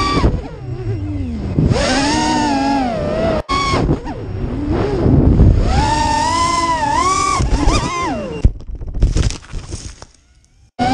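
Emax RS2205 2300KV brushless quadcopter motors spinning tri-blade props, a whine whose pitch rises and falls with the throttle, over rushing wind noise. The sound breaks off for a moment about three and a half seconds in. Near the end it turns choppy and then drops almost to silence as the motors stop.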